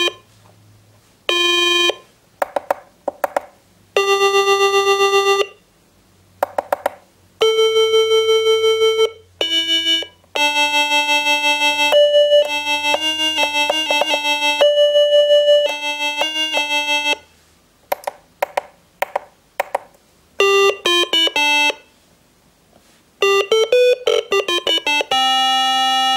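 Franzis MKI-2K16 kit synthesizer playing plain square-wave beeper tones, one note after another from its touch keyboard. Some notes are short, some are held for a second or more, and some warble quickly in pitch with its vibrato.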